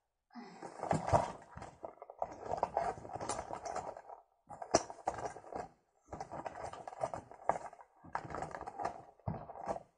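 Rustling and scraping handling noise close to the microphone, in stretches with short gaps and a few sharp clicks, as a cloth bag and its contents are handled.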